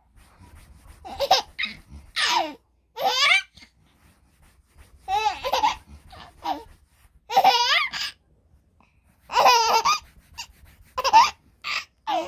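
A baby laughing in a string of short, high-pitched bursts of giggles and squeals, separated by brief pauses.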